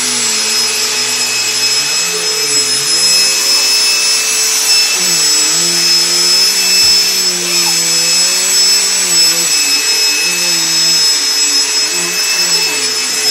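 Upright vacuum cleaner running steadily: a loud rushing hiss with thin high whines, over a low hum that wavers up and down in pitch.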